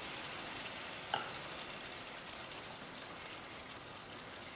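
Pot of potato curry sizzling on the stove, with water freshly added to the hot oil and gravy, a steady hiss that slowly fades. There is a brief clink about a second in.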